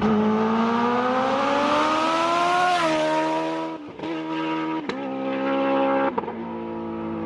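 Kawasaki Ninja H2's supercharged inline-four engine pulling away hard, its pitch climbing for nearly three seconds before dropping with an upshift. It then holds a steadier note, with a couple more shifts about four and six seconds in.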